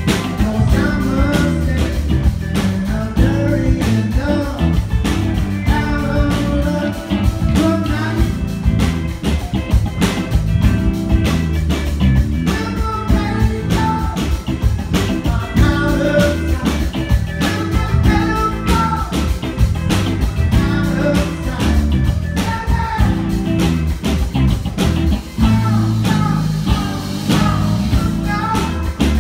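Rock band playing live: electric guitars, bass guitar and a drum kit at full volume, with a sung lead vocal over the top.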